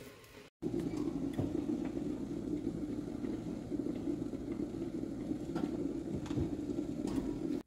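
Oven fan running with a steady hum, with a few light knocks over it.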